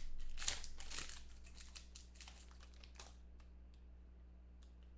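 Foil trading-card pack wrapper crinkling as it is torn open and crumpled, loudest in the first second or so. Smaller rustles follow, then only a few faint clicks as the cards are handled.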